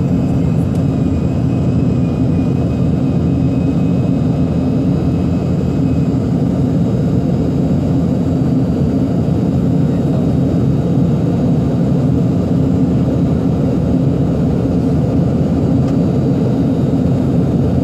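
Yak-40 cabin noise during the climb after take-off: a loud, even rumble from its three rear-mounted Ivchenko AI-25 turbofans, heard from inside the cabin. A faint high whine stops about six seconds in.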